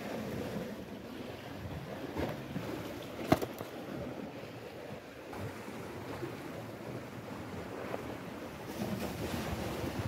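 Sea wind buffeting the microphone over waves washing against the rocks below. A single sharp knock about a third of the way through.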